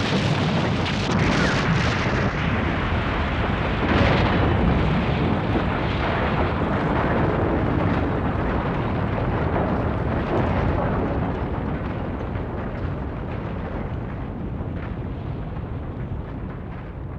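Soundtrack effects of a giant machine exploding and collapsing: a continuous rumble of blasts and falling debris, with a sharper blast about four seconds in and another past the middle. It slowly dies away over the last few seconds.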